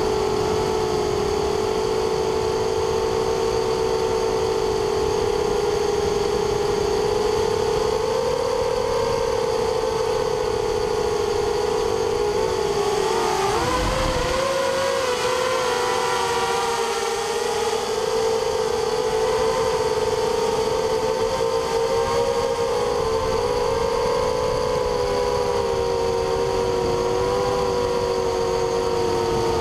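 Hexacopter's six 2300 kV brushless motors and propellers whining steadily, several close pitches sounding together. About halfway through the pitch dips and wavers briefly, with a short low rumble, then settles again.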